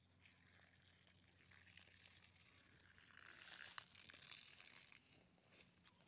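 Faint splashing of water poured from a plastic watering can onto soil, stopping about five seconds in.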